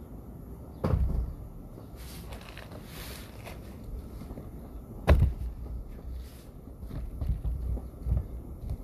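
Two dull thumps, about a second in and about five seconds in, over a low rumbling noise, with a few softer knocks near the end.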